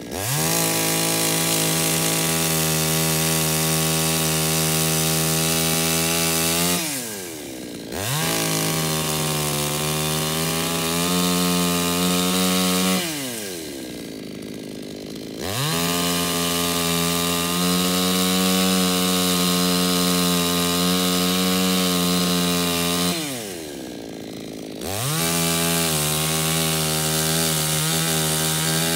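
Two-stroke Salem Master gas chainsaw cutting the trunk of a small tree at full throttle in four long runs. Between runs the engine drops back to idle for a second or two with a falling pitch, then revs up again.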